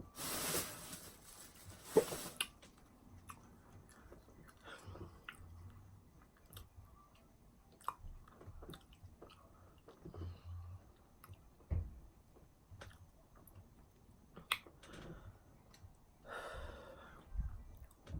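A person chewing sushi close to the microphone, with small wet mouth clicks and soft thumps. A loud rustle fills the first couple of seconds.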